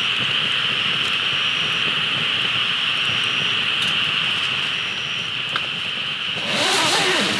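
Steady outdoor campsite ambience: a continuous hiss of traffic on a nearby road, with a steady high-pitched tone over it. About six and a half seconds in, the sound changes and turns brighter.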